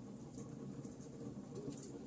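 Wood fire in a fireplace crackling: small scattered pops and snaps over a low steady rumble.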